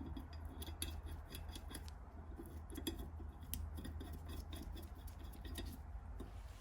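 Small hand tool being worked: a brisk, irregular run of light clicks and snips, several a second, typical of the brass gasket cutter in use.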